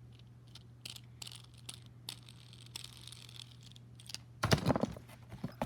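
Small plastic fidget toys being handled: scattered light clicks and taps with some rustling, then a louder clatter of knocks about four and a half seconds in.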